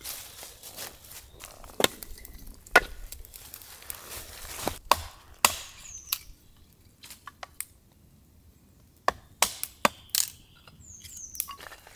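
Small axe splitting firewood on a wooden chopping block into smaller pieces for a wood stove: sharp chops, several in the first six seconds, a short pause, then another few around nine to ten seconds in.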